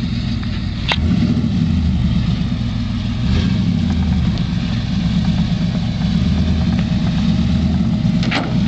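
Dodge pickup truck's engine running at low speed as the truck crawls through soft sand, a steady low rumble that gets louder about a second in. Two short sharp clicks, one about a second in and one near the end.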